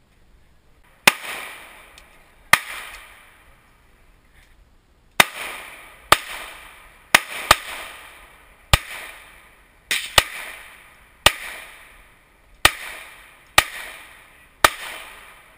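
Handgun shots, about a dozen, each a sharp crack with a short echoing tail. Two shots a second and a half apart about a second in, a pause, then shots roughly every second, twice in quick pairs.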